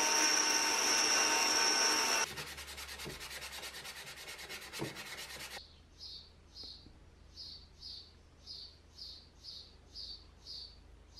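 Powered belt file grinding the steel jaw of an old adjustable wrench, a steady grinding hiss with a high whine; it stops about two seconds in and the belt runs down with a fast even ticking for a few seconds. After that, soft rhythmic scratching, about two strokes a second.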